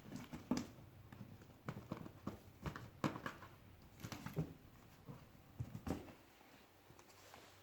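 A cat moving about and handling objects: irregular light knocks, taps and scuffs, thinning out after about six seconds.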